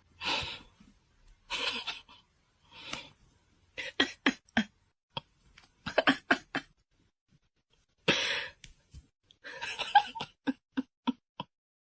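A person laughing in short breathy bursts, then quick runs of pitched "ha" pulses, with pauses in between.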